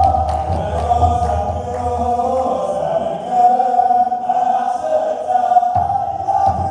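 A group of men chanting a hymn together in the Ethiopian Orthodox style, holding long notes, to the beat of large kebero drums. The drumming fades for a few seconds in the middle and comes back strongly near the end.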